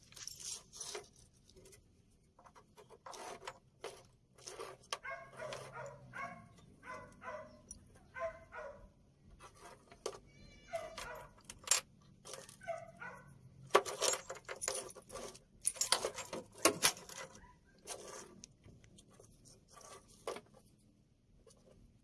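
Keys jangling on a ring and sharp metallic clicks as a new ignition switch and its key are handled and turned, loudest and densest about two-thirds of the way through.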